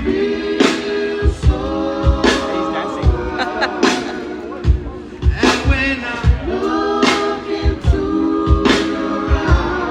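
Background music: a song with sung vocals over a steady drum beat.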